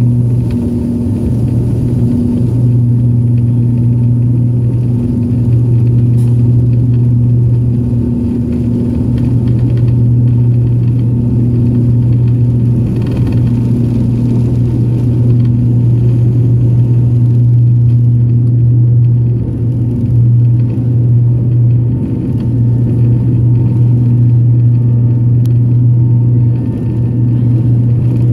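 BAe ATP turboprop engines and propellers at takeoff power, heard inside the cabin: a loud, deep, steady propeller drone over a low rumble through the takeoff roll and lift-off. The drone wavers slightly now and then.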